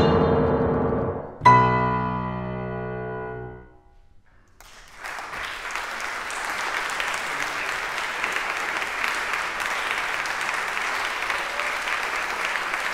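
Grand piano ending a piece: a loud final chord about a second and a half in rings out and fades away. After a moment of silence the audience breaks into steady applause.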